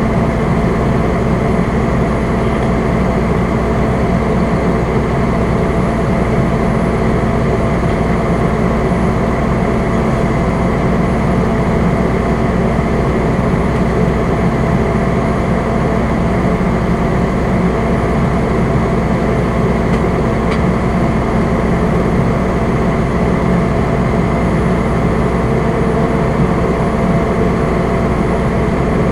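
Fire engine's engine and road noise heard from inside the cab: a steady, even running sound with a few constant tones in it.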